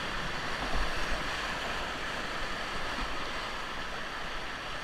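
Steady rush of whitewater from the Ocoee River's rapids, with low rumbling thumps on the microphone about a second in.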